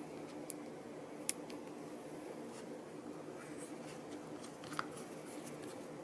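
A few sharp little clicks of small plastic and circuit-board parts being handled and fitted as the HVAC fan switch assembly is put back together, the loudest just over a second in, over a steady low background hum.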